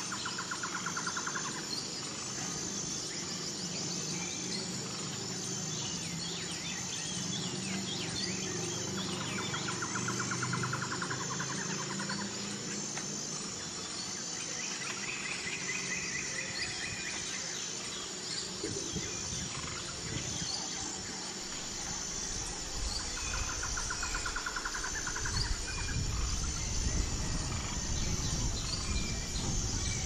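Outdoor nature ambience: insects chirring steadily at a high pitch, with trilled bird calls now and then, and a low rumble coming in for the last several seconds.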